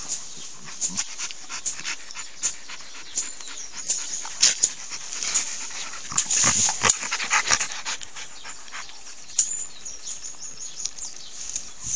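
Two dogs play-wrestling, an Alaskan Malamute and a shaggy brown dog, panting and mouthing at each other, with many short clicks and rustles that are busiest around the middle.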